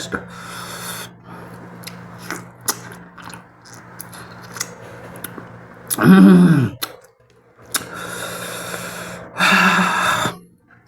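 Close-miked eating sounds of mutton curry and rice: chewing and mouth smacks with many small clicks. About six seconds in there is a short loud voiced sound falling in pitch, and near the end a loud noisy stretch. A steady low hum runs underneath.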